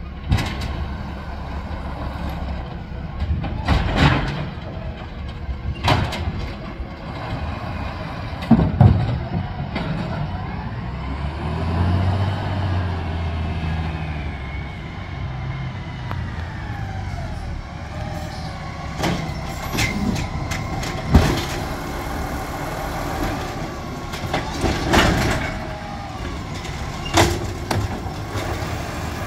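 Waste Management Amrep automated side-loader garbage truck: the diesel engine runs, revs up and back down as the truck pulls ahead. Several sharp bangs and clanks come from the lifting arm and the carts being tipped into the hopper.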